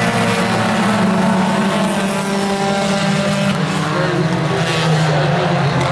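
Engines of a field of compact tuner-class race cars running at race speed, several overlapping engine notes rising and falling as the cars pass.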